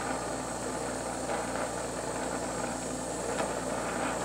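Glassworking bench torch flame hissing steadily, with a faint tick or two.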